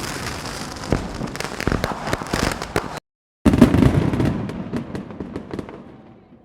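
Dense, rapid crackling and popping. It cuts off abruptly about three seconds in, starts again loud a moment later, and fades out near the end.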